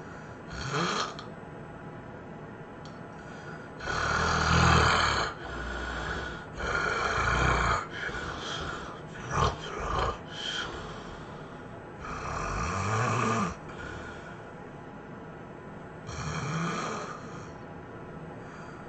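A sleeping person snoring loudly in uneven breaths: a short snore near the start, longer ones about four, seven and twelve seconds in, a choppy run of snorts around nine to ten seconds, and a last one near the end.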